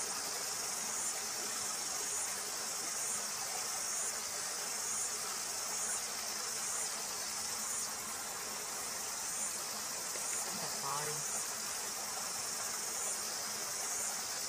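Steady high-pitched chorus of insects shrilling in the surrounding bush, swelling and fading about once a second.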